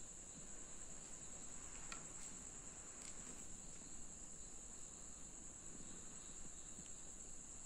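Faint, steady high-pitched chorus of crickets at night, with a couple of faint clicks about two and three seconds in.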